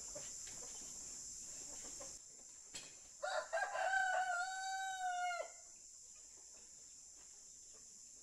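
A rooster crows once, a little over three seconds in: one call of about two seconds, held and then dropping off. A steady high-pitched insect drone runs underneath.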